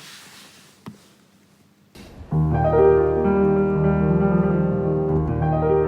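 Soft piano music starts about two seconds in, playing held chords, after a short breath and a faint click.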